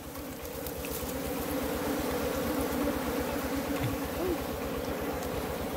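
A colony of honeybees buzzing in a steady, droning hum from their nest cavity in the ground, which has been dug open to expose the combs. A single bee's pitch glides briefly about four seconds in.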